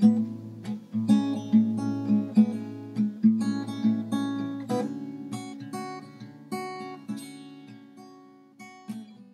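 Background music: an acoustic guitar playing without vocals, its notes thinning out and fading away near the end.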